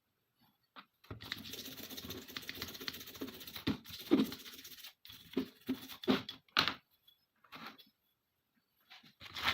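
Close, rapid scraping on small parts for about four seconds, then a series of short, separate clicks and knocks.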